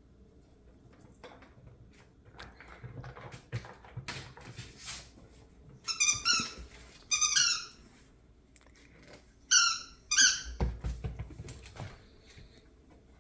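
A dog biting a squeaky ball toy: four high, wavering squeaks in two pairs, about six and ten seconds in, with small clicks of chewing between them and a low thud right after the last squeak.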